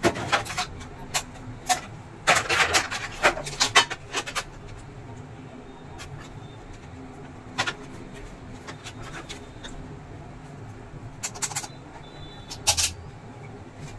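Sharp plastic clicks and knocks of an induction cooker's plastic top frame and control circuit board being handled and fitted by hand, over a low steady hum. A quick run of rattling clicks comes about two to four seconds in, with a few more near the end.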